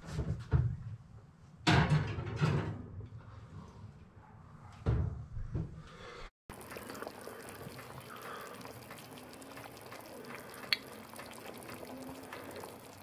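Oven door and rack clunking as a glass casserole dish of chicken is put into the oven, with several knocks in the first few seconds. Then, after a cut, the baked chicken thighs sizzle and bubble in their sauce in the hot dish, a steady crackling hiss.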